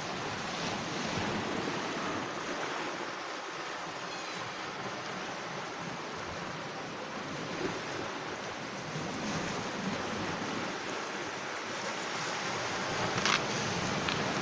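Steady wash of small waves breaking on a boulder-and-pebble shore. A few sharp clicks sound near the end.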